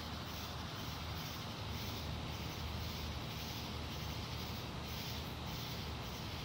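Night insects calling in chorus, a high pulsing sound about twice a second, over a steady low hum. No fireworks go off.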